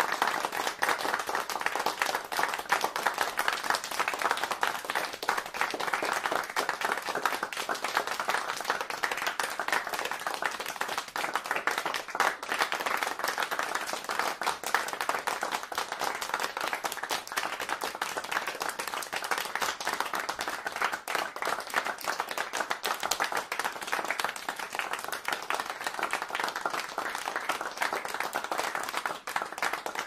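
Applause from a crowd: many hands clapping at once, keeping a steady level without a break.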